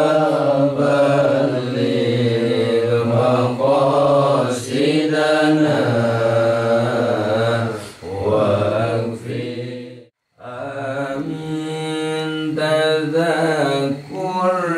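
Men chanting Arabic prayers in a drawn-out melodic recitation, the voices gliding up and down without pause. The chant cuts out completely for a moment about ten seconds in, then resumes.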